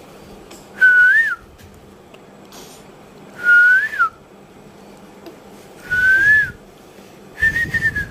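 A person whistling four short notes about two and a half seconds apart, each rising slightly and then dropping away at its end; the last note is a little higher and held level.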